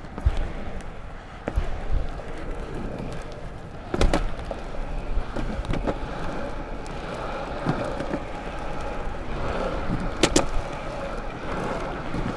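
Longboard wheels rolling on a rough asphalt path: a steady rumble that grows a little louder in the second half, broken by several sharp clacks and knocks from the board.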